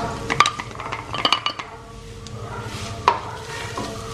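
Wooden spatula scraping crushed coconut out of a steel bowl into a kadai, with a few sharp knocks of wood on metal, over a light sizzle of the coconut oil.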